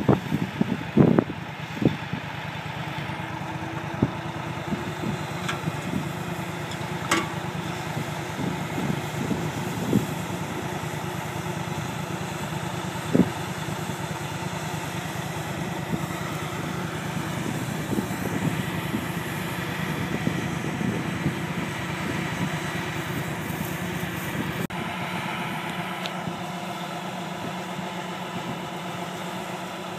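John Deere 9560R four-wheel-drive tractor and S670 combine running side by side while the combine unloads grain into the cart: a steady engine hum with a few sharp knocks. The sound changes abruptly near the end.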